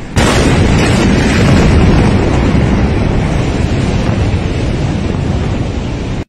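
Loud, steady rumbling roar from a huge explosion, heaviest in the low end and buffeting the phone's microphone like strong wind. It starts abruptly just after the start and cuts off suddenly near the end.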